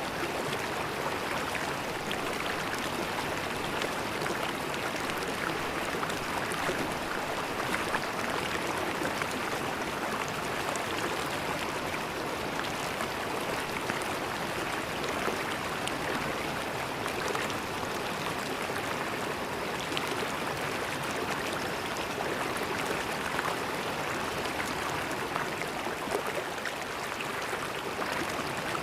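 River water flowing over stones, a steady rushing and gurgling with small splashes.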